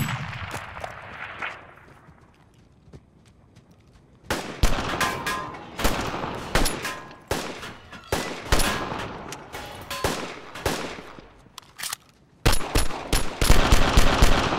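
Gunfire from a rifle and pistols on an outdoor range. A single shot with a long echo comes at the start, then a quieter gap of about two seconds. Runs of shots begin about four seconds in and end in a fast volley near the end.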